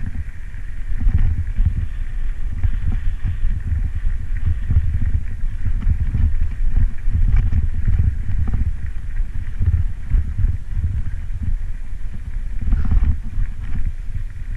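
Wind buffeting a bike-mounted camera microphone on a fast downhill ride, a heavy uneven rumble, with scattered clatters and knocks as the mountain bike rattles over a rough gravel and rock road.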